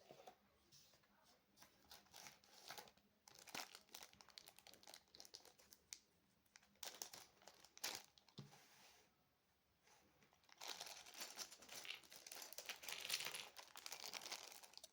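Packaging being handled and crinkled: faint, irregular crackling and rustling, busiest over the last few seconds.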